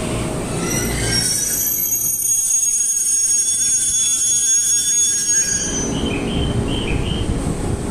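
The Shiki-shima cruise train's wheels and brakes squealing in several high steady tones as it runs slowly into the platform, over a low rumble. The squeal fades about five and a half seconds in. A few short stepped tones sound near the end.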